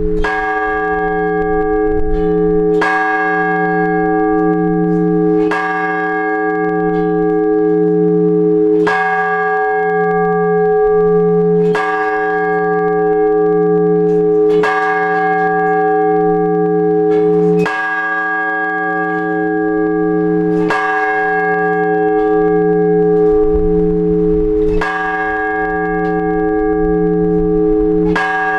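Blagovest: a single large Orthodox church bell struck slowly and evenly, about once every three seconds, each stroke's deep hum ringing on under the next. This is the ringing that calls worshippers to the all-night vigil.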